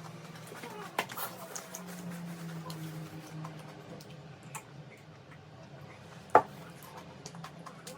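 Eating sounds: scattered small clicks and taps of utensils against a bowl, with one sharp click about six seconds in, over a low steady hum.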